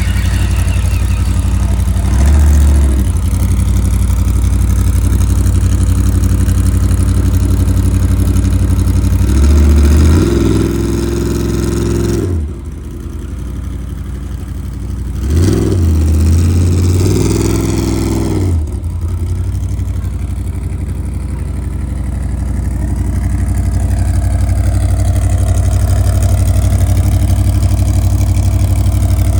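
Off-road race vehicle's engine idling and being revved: a short rev about two seconds in, then longer revs around ten and sixteen seconds in, settling back to idle between them.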